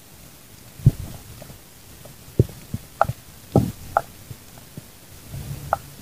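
Underwater sound through a camera's waterproof housing: a few dull, muffled knocks and rumbles, with short higher chirps in between.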